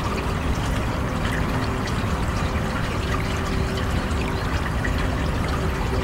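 Stream water running and trickling over stones, a steady splashing rush close to the microphone.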